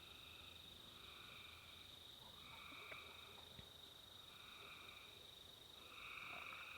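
Faint summer-night chorus: a steady high insect trill under a second caller whose calls repeat about every second and a half, with a couple of small clicks near the middle.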